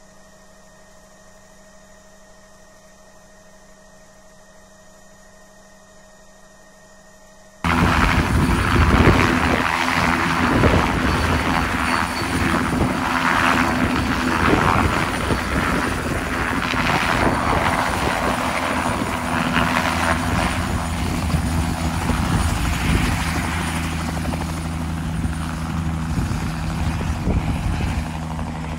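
Bell 505 helicopter taking off: the loud, steady beat of its two-blade main rotor and the whine of its Safran turboshaft, easing slightly as it climbs away. Before this, for about eight seconds, there is only a faint steady hum in the cockpit, which cuts off abruptly.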